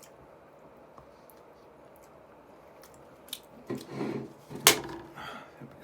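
A man eating fried chicken wings close to the microphone: quiet at first, then chewing and mouth noises, with one sharp crack or click a little over three-quarters of the way in.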